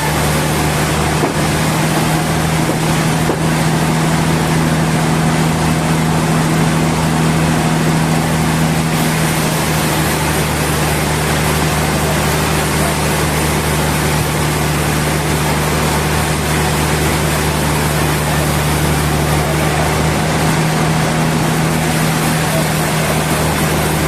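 Sawmill machinery running steadily: a constant motor hum with an even hiss over it.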